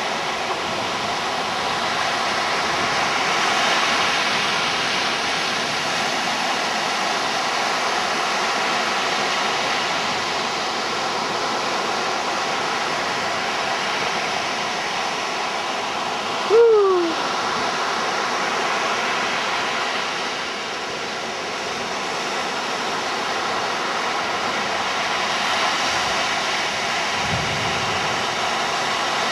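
Rough surf breaking and washing up a sandy beach, a steady rushing noise. About halfway through, one short call falls in pitch.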